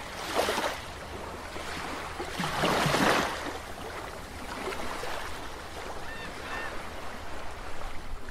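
Underwater-style sound effects for an animated logo: a steady watery hiss with two louder rushing whooshes, one about half a second in and a longer one around three seconds in, and a few faint short chirps near six seconds.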